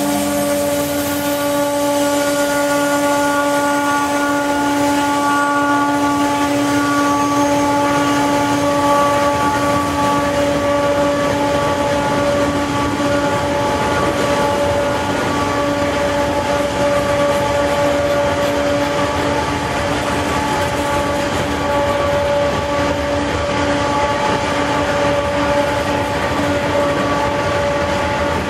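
Freight train passing close: diesel-electric locomotives working under load on an upgrade, a steady high whine laid over the rumble of the engines and of the freight cars rolling by.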